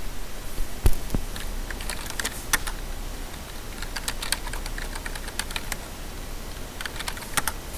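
Typing on a computer keyboard: irregular key clicks as a command is typed into a terminal, with one louder keystroke about a second in.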